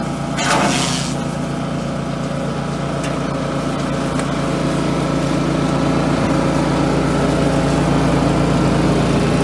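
Elephant-grass chopper driven by a small engine running steadily, its spinning cutter shredding fed grass stalks, with a brief louder rush about half a second in.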